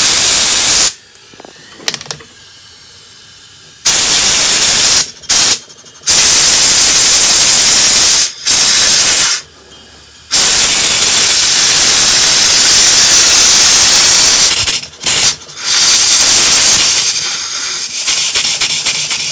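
Compressed air hissing in loud on-off bursts from a hand-held blow gun feeding a Stuart Models James Coombes table steam engine. Near the end the hiss turns into a rapid, even pulsing as the little engine runs over on air.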